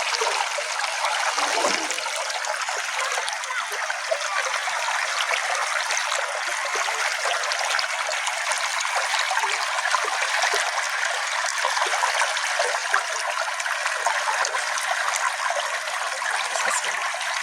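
A small stream running steadily, an even rush of trickling water with no low rumble.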